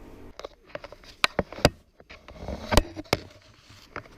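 A string of irregular sharp clicks and knocks, several in quick succession, with the loudest about a second in and near three seconds in.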